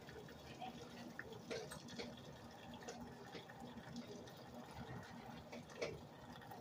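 Faint water dripping and trickling, with scattered light clicks over a steady low hum.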